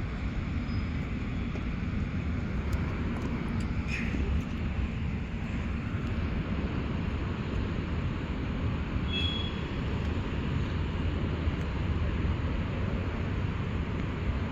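Steady low rumble of a freight train rolling past, its container cars going by without a break.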